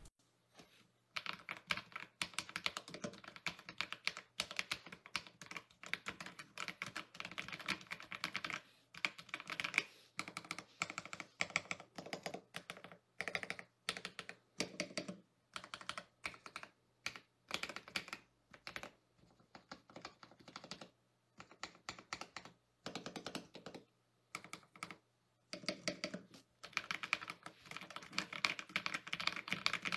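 Typing on a mechanical keyboard fitted with Akko CS Matcha Green linear switches (50 g) and PBT keycaps, in a foam- and tape-modded case: fast runs of keystrokes in bursts of a few seconds, broken by short pauses.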